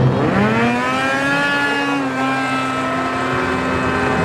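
Race snowmobile engine launching: its pitch climbs sharply over the first second or so, then holds a high, nearly steady note with a slight dip about two seconds in as the sled pulls away down the track.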